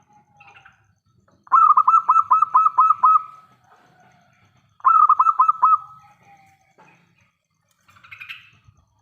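Zebra dove (local perkutut) cooing: two phrases of quick, evenly repeated notes, the first of about eight notes and the second, about two seconds later, of about five, followed near the end by a faint, short call.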